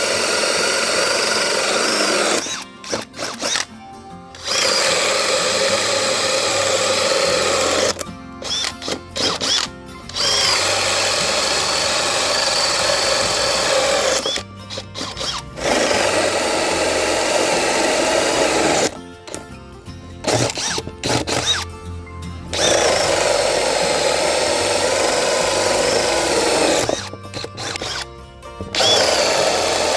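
Stanley FatMax SBD715D2K brushless cordless drill, in high speed without hammer, cutting wood with a 35 mm hole saw. It runs in stretches of several seconds with about five short pauses, the motor whine rising each time it starts again.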